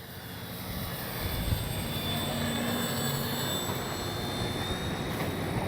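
Brushless electric motor (3136-1200KV) and propeller of an FMS Ranger 1220 mm RC plane in flight, a steady whine that grows louder over the first couple of seconds and then holds as the plane makes a low, slow pass.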